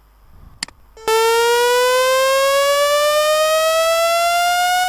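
Audacity-generated sawtooth chirp: a loud, buzzy tone rich in overtones that rises steadily in pitch. It starts about a second in, after a single click, and holds an even level.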